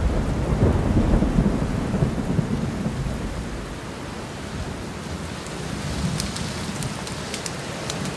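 Heavy rain falling steadily with a low rolling rumble of thunder that fades away after about three seconds. Scattered sharp ticks come in over the rain in the last couple of seconds.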